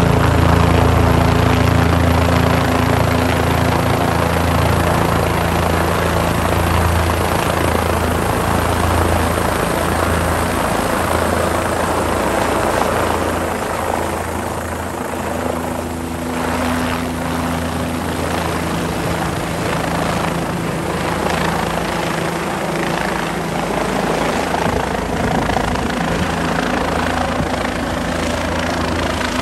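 Air-ambulance helicopter coming down to land, its rotor and turbine engine running loud and steady, briefly a little quieter about halfway through.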